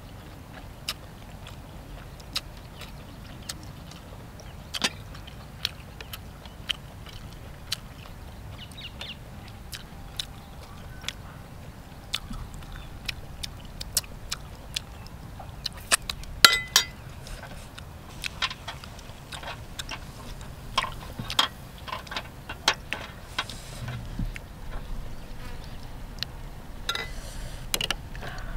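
Eating sounds: irregular wet clicks and smacks of a person chewing grilled octopus, with a few louder clusters in the second half, over a low steady rumble.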